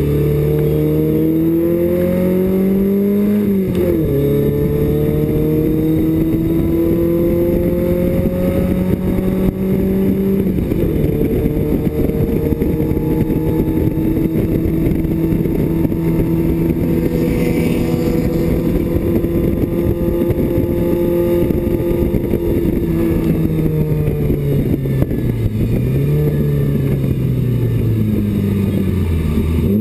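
BMW 2002 race car's engine heard from inside the cockpit at speed. It revs up and drops sharply with a gear change about four seconds in, then holds a fairly steady note. Near the end it falls away as the car slows, with one short blip of revs partway down. A steady rush of road and wind noise runs underneath.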